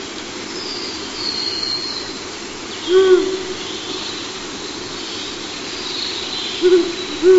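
Ural owl hooting: three low, short hoots, one about three seconds in and two close together near the end, over a steady low background hum. Faint high thin bird notes sound behind them.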